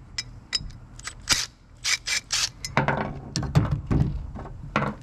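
Cordless impact driver backing the spring-loaded relief-valve plug out of an old LS oil pump housing. Sharp, irregular metal clicks and clinks come from the driver, plug and cast pump body being handled, then a heavier clatter about three seconds in as the tool and parts are set down on the truck tailgate.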